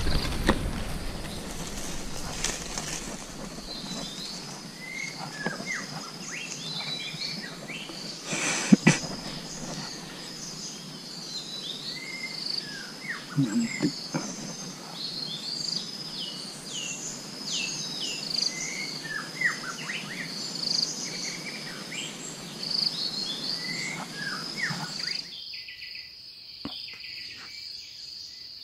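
Forest ambience: a steady high-pitched insect drone with many short, falling chirps and calls over it, and a sharp click about nine seconds in. Near the end the chirps stop abruptly, leaving the insect drone alone.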